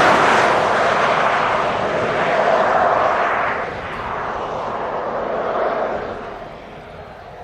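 A vehicle going by with a broad rushing noise, loudest at the start, rising and easing in waves and fading out near the end.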